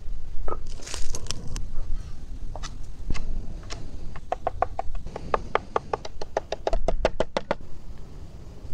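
Kitchen knife chopping red chili peppers on a wooden cutting board: a quick, even run of chops, about five a second, starting about four seconds in and stopping near the end. A few scattered knocks and scrapes come before it.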